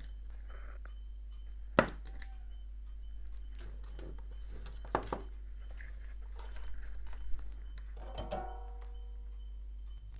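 A few sharp clicks and knocks as a power transistor is handled and its leads are pushed into a circuit board, the loudest about two seconds in and another about five seconds in, with a brief ringing clatter near the end. A steady low hum runs underneath.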